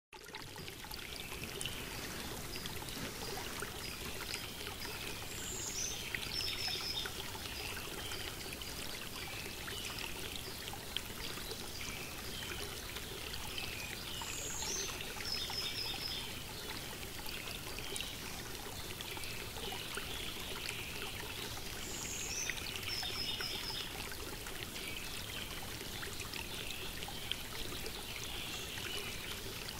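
Steady running-stream water ambience, with a bird singing the same short phrase about every eight seconds: a falling high note followed by a few quick chirps.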